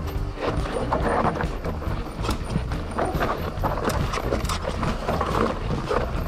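Mountain bike clattering and rattling over rough, rocky ground in a rapid, irregular run of knocks, with wind rumbling on the microphone.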